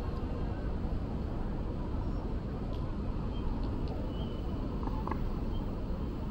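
Steady low rumble of outdoor city ambience, with a few faint, brief higher sounds about halfway through.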